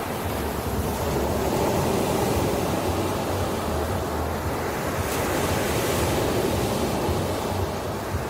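Ocean waves washing on the shore, a steady surf hiss that builds and swells over several seconds, then eases off near the end.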